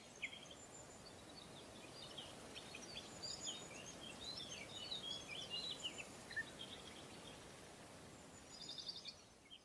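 Faint birdsong: many short chirps and quick twittering notes, busiest in the middle, with a brief rapid trill near the end, over a faint hiss.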